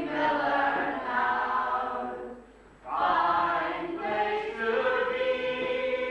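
A group of voices singing a song together in long held phrases; one phrase ends about two and a half seconds in and the next begins half a second later.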